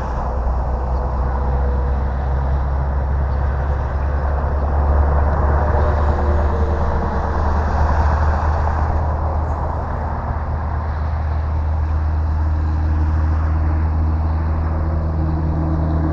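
Wind buffeting the microphone, the loudest sound, over the faint whine of an electric RC airplane's motor and propeller in flight, its pitch sliding slowly up and down.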